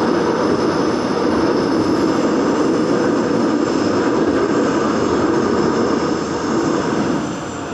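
Daegu Metro Line 2 train running at speed through a tunnel, heard from inside the car: a loud, steady rumble of the wheels on the rails. It quietens near the end as the train leaves the tunnel.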